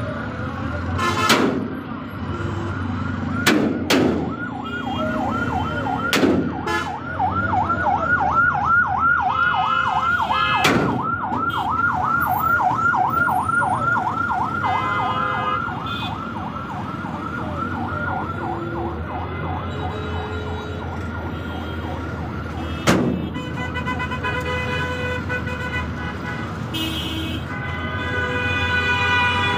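Ambulance siren in a fast rising-and-falling yelp, several sweeps a second, stopping about two-thirds of the way through. Heavy traffic rumble runs underneath, with a few sharp knocks and, near the end, steady vehicle horns.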